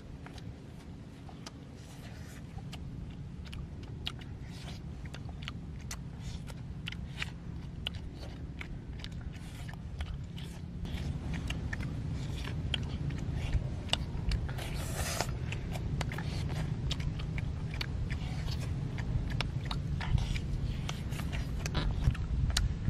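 Close-up eating sounds of children biting and chewing cooked eel, with many quick small clicks and crunches over a steady low rumble.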